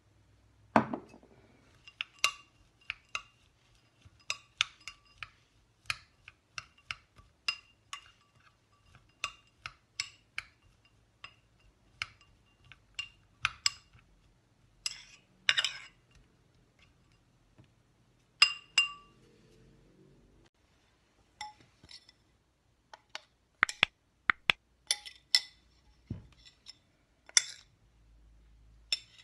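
Metal spoon clinking against a small glass bowl while stirring chopped nuts with maple syrup: short, ringing clinks at uneven intervals, about one or two a second.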